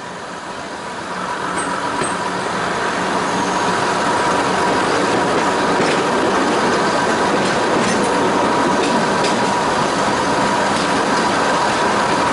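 Heritage diesel multiple unit running along the line, heard from the carriage window: a steady rumble of engine and wheels on rails that grows louder over the first few seconds, then holds, with a steady high whine and a few faint clicks from the track.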